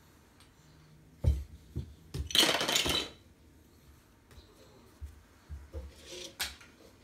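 Hard plastic toys being handled and knocked together as a small child gathers them from the floor. There are a few separate knocks, a loud rattling clatter about two and a half seconds in, and softer knocks near the end.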